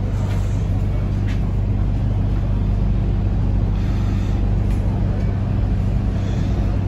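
MTR Kwun Tong Line C-train running, heard from inside the passenger car: a steady low hum with an even rumble of wheels on track.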